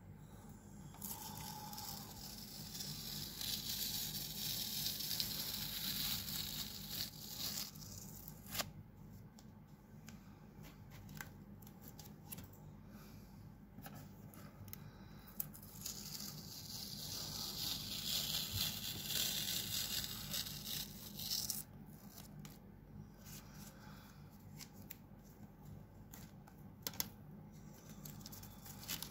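Masking tape being peeled off a taped-down sheet of painting paper, two long strips in turn: one from about a second in lasting some six seconds, the other from about sixteen to twenty-one seconds. A few light clicks and handling noises come between.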